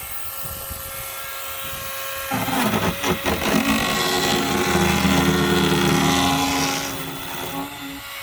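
Kobalt battery-powered chainsaw running with a steady whine. About two seconds in it bites into material and runs under load, louder and rougher at a lower pitch for about five seconds, then eases off near the end.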